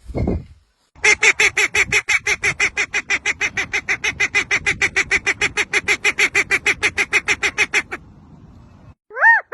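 A bird giving a long, fast run of harsh repeated calls, about six a second, for some seven seconds, which stops abruptly. A brief low thump comes just before it.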